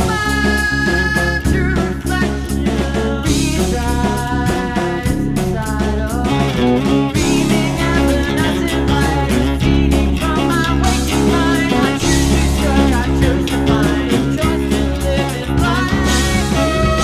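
Rock band recording playing: a wavering lead melody over a heavy, steady bass line and drums.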